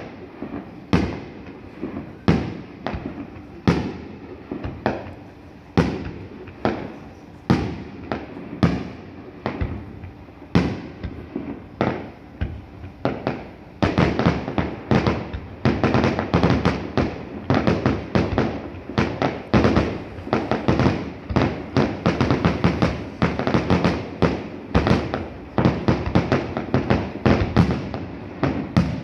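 Fireworks bursting as sharp bangs about once a second. About halfway through they come much faster and louder, in quick overlapping bangs.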